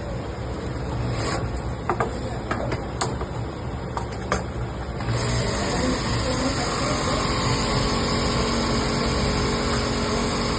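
A few sharp clicks and knocks over a low steady hum, then about five seconds in an industrial sewing machine starts running and keeps going at an even, steady speed.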